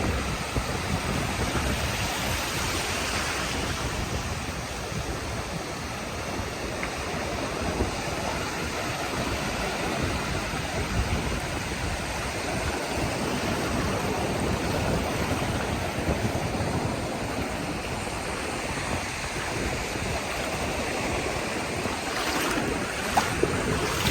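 Ocean surf washing steadily onto a beach.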